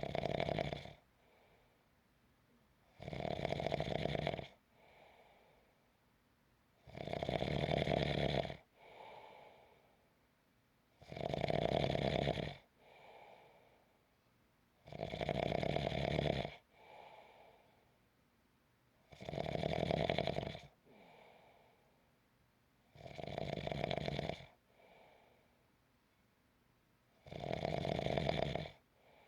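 A sleeping person snoring in a slow, even rhythm: a loud snore of about a second and a half roughly every four seconds, each followed by a softer, shorter breath out.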